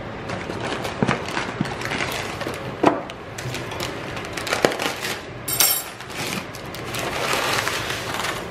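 Crinkling packaging and scattered sharp clicks and knocks against an aluminium foil pan. Near the end comes a longer rustle as dry Stove Top chicken-flavor stuffing crumbs are poured from the paper pouch into the pan.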